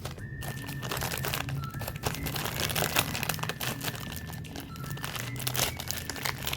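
Close-miked ASMR eating sounds: dense, irregular crunching and crackling from biting and chewing crunchy cookies and cakes.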